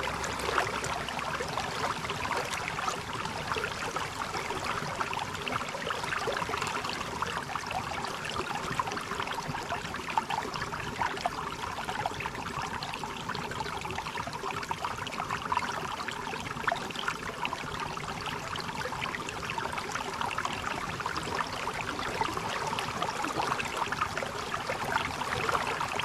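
Water running steadily down into a waterfall: a continuous rushing with many small splashes.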